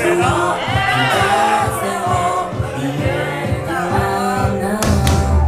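Anime song with sung vocals and a steady beat, played loud over a sound system for the dancers.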